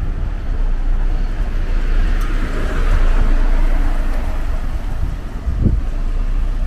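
Strong gusty wind buffeting the microphone with a heavy low rumble, over street noise that swells about two to three seconds in.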